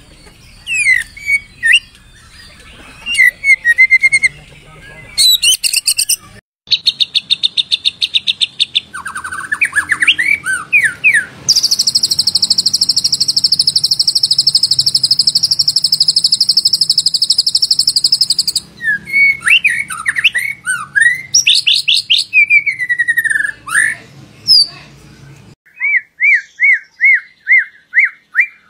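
White-rumped shama (murai batu) singing a varied song of whistled phrases. It includes a long, dense, high trill lasting several seconds mid-way and a quick run of about ten repeated notes near the end. It is a shama lure recording ('pancingan') played to set off a captive shama's song, with abrupt breaks between some phrases.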